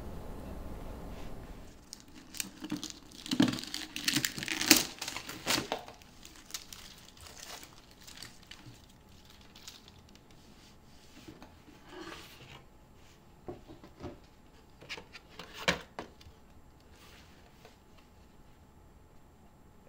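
A small fabric-covered cardboard box being handled and opened, with rustling and scraping as the lid comes off and the VHS tape inside is lifted out. There is a busy run of crinkles and knocks from about two to six seconds in, and a single sharper knock near the end.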